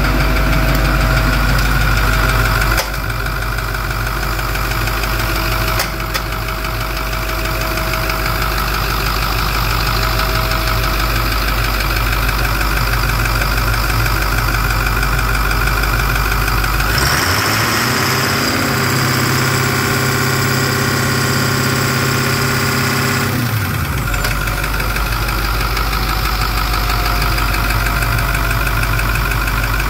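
2010 International MaxxForce 7 6.4-litre V8 turbodiesel running steadily. For about seven seconds past the middle its note shifts to a higher steady pitch, then drops back.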